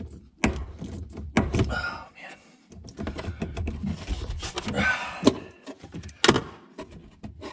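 Hose clamps, rubber fuel hoses and wire connectors being handled and pulled at the top of a car's fuel pump sender assembly: irregular clicks, knocks and rattles. A few strained groans from the man doing the work come in about halfway through.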